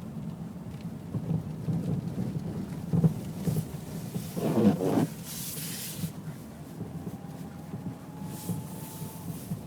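Mazda Millenia driving with steady low road rumble, punctuated by repeated dull knocks from the right-side suspension and a louder clatter near the middle. The knock persists although the sway bar links, bushings and ball joints have been replaced and the shock absorber is sound; a shop diagnosis could not find the cause.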